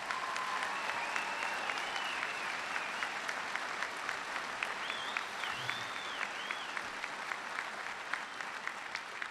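Large audience applauding.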